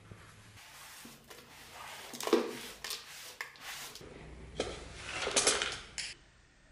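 Small metal parts, brass pins and fittings, clicking and rattling as they are gathered off a wooden workbench into a plastic container. A sharp knock about two seconds in is the loudest sound, and there is a dense clatter near the end.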